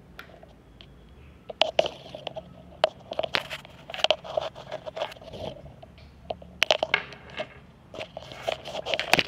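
Irregular crackling and scraping with many sharp clicks, in clusters that start about a second and a half in, from a dismantled Bluetooth earbud's speaker and its wires being handled.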